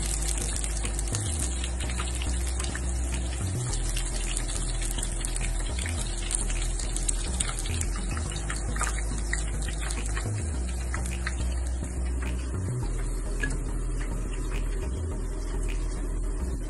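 Chicken pieces deep-frying in hot oil, a steady sizzle, with scattered light clicks as a wire-mesh strainer scoops them out of the pan.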